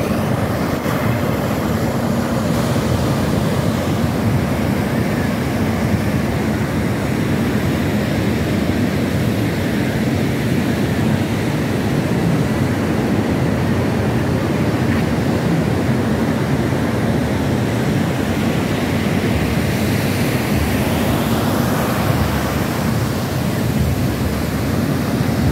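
Ocean surf breaking, mixed with wind on the microphone: a loud, steady rush, heaviest in the low end.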